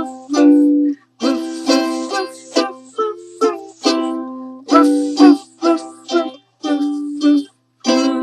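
Ukulele strummed in chords in a steady rhythm, an instrumental break with no singing.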